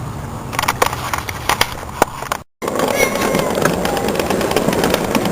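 Scattered clicks and crackles, then, after an abrupt cut about halfway in, a steady rattling rumble from a kids' ride-on toy car rolling over the ground.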